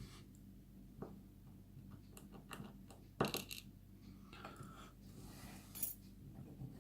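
Light metallic clicks and taps of tiny lock pins falling out of a small pin-tumbler lock's plug onto a hard surface during disassembly. The clicks are scattered, and the sharpest one, about three seconds in, rings briefly.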